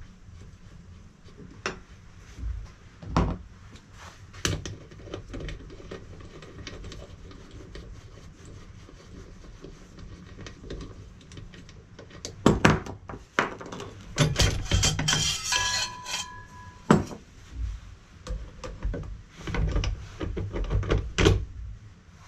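Hand tools and rolled sheet steel clanking and knocking against a steel bench slip roll and workbench, sparse at first, then a dense clatter in the second half with the sheet metal ringing briefly.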